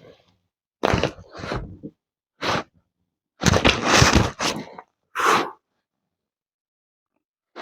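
A run of short clattering and scraping noises, about six separate bursts, each cutting off into silence, with the longest cluster about halfway through.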